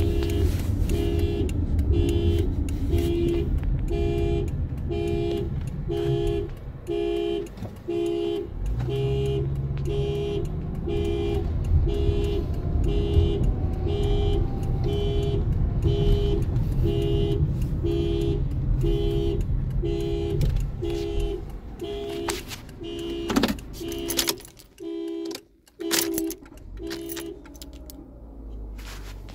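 2015 Toyota RAV4's horn honking by itself, in an even alarm-like pattern of about one half-second honk a second, over the car's low driving rumble. Near the end the honking stops, the rumble dies away and there are a few clicks.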